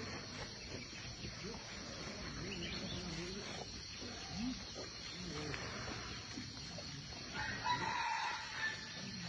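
A rooster crows once, about seven seconds in, a call lasting about a second over a steady high insect-like hum.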